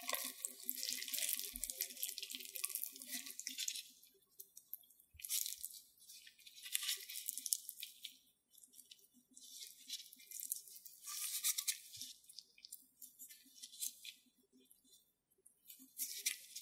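Raw salmon roe being worked apart by gloved hands in a glass bowl: wet crackling and squishing as the eggs are rubbed and torn free of the skein's membrane. It comes in bursts a second or two long with short pauses between.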